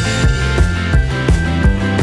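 Rock-style music with a steady beat of about three strikes a second over sustained bass and pitched notes.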